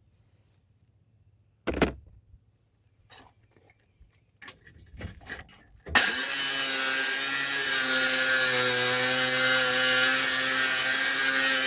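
A single metal knock about two seconds in and a few light clanks, then an angle grinder starts about six seconds in and runs steadily at a constant pitch, cutting out the CV axle seized in the hub.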